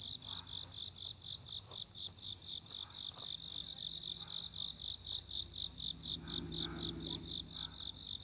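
Insects chirping in a steady rhythm, about four high-pitched pulses a second. A faint low hum swells briefly near the end.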